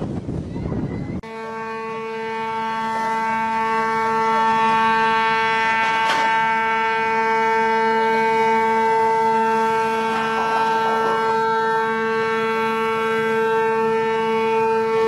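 A large ship's horn sounding one long, steady blast that swells over the first few seconds and then holds. It is preceded by about a second of rushing wind and water noise from a boat at sea, and there is a single sharp knock about six seconds in.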